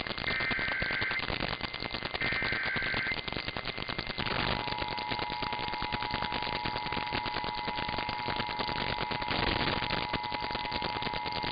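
Emergency Alert System transmission over crackling radio static: the last two of the three short screeching SAME data bursts of the alert header, then about four seconds in the steady EAS two-tone attention signal, held to the end.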